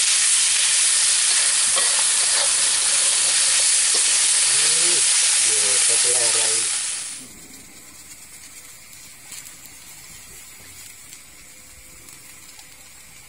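Pieces of jungle fowl frying loudly in a wok, a steady sizzle with a metal spatula stirring and scraping through it. About seven seconds in, the sizzle cuts off and only a faint hiss remains.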